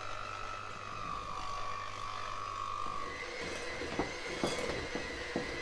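Electric hand mixer running, its beaters whisking sponge cake batter in a ceramic mixing bowl as melted butter is poured in. The motor's whine shifts to a higher pitch about three seconds in, and a few clicks come near the end.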